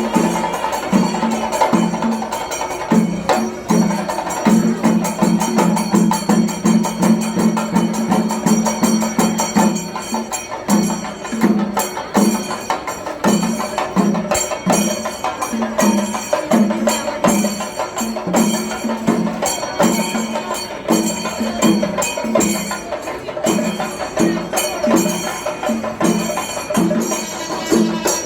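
Kerala temple festival percussion ensemble playing: drums struck with sticks in a fast, steady rhythm over continuous clashing cymbals.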